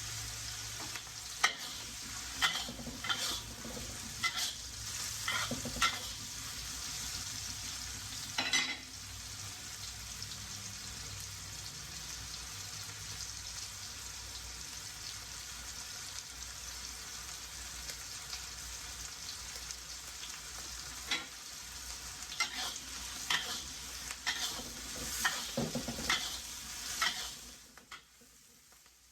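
Vegetables sizzling in a hot pan while being stirred, a utensil scraping and knocking against the pan in bursts near the start and again in the last several seconds, with a stretch of steady sizzle between. The vegetables are being cooked until tender. The sizzle drops away just before the end.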